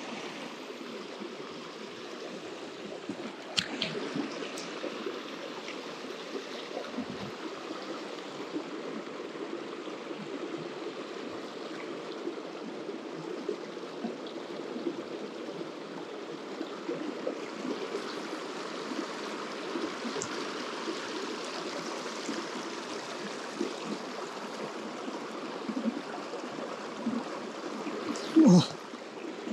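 Mountain stream water running steadily over rocks, with a few faint clicks and one brief, louder sound near the end.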